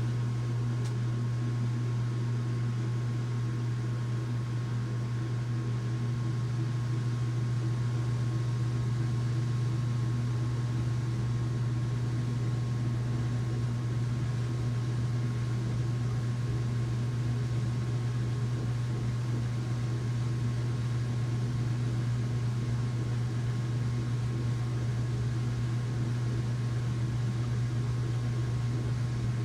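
Washing machine running with a steady low hum and a faint steady whine above it, unchanging throughout.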